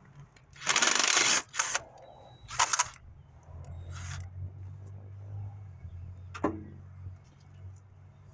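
Cordless power driver run in short bursts, backing out bolts on the engine's coil pack bracket and valve cover. The longest, loudest burst comes about half a second in, followed by a few shorter ones, and a sharp click near the end.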